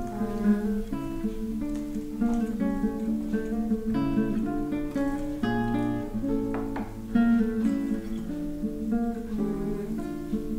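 Background music: acoustic guitar picking a steady run of notes.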